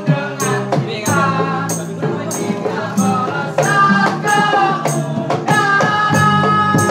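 Live band: several male voices singing together over bass guitar and hand drums, with a cymbal struck with a stick on each beat, about one hit every half second. Near the end the voices hold one long note.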